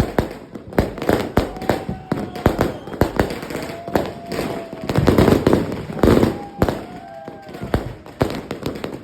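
Fireworks from a finale board going off in rapid succession: dense sharp bangs and pops, several a second, without a break.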